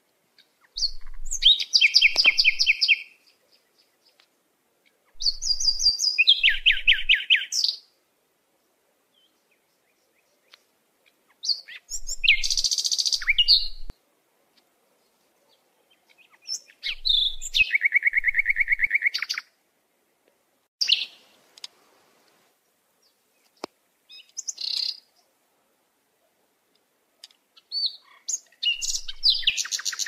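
A songbird singing short, rapid trilled phrases of two to three seconds each, repeated every few seconds, with a few brief single chirps in the gaps.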